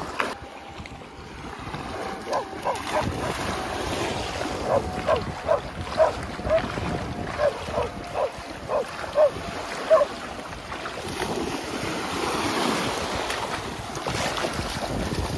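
Shallow sea surf washing and splashing around a golden retriever puppy as it wades through the water, with wind buffeting the microphone. From about two seconds in until about ten seconds in, a quick irregular run of about fifteen short, high calls, two or three a second, stands out above the water.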